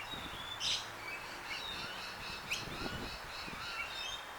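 Garden birds calling: short high chirps and whistles, with a fast run of repeated high notes, about five a second, through the second half, over steady background noise.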